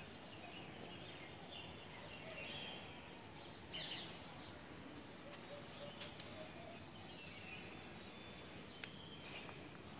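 Faint outdoor ambience: steady background noise with a few distant birds chirping, the loudest a quick falling call about four seconds in, and a few small clicks.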